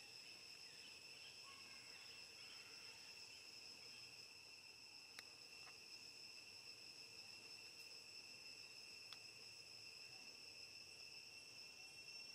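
Faint, steady, high-pitched drone of insects calling without a break, with a few faint clicks.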